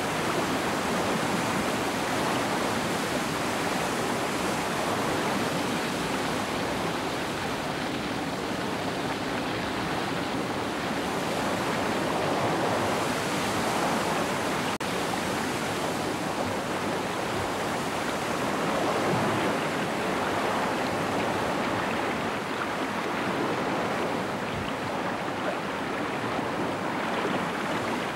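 Big-volume river rapids: heavy whitewater rushing steadily, a dense continuous rush with no breaks.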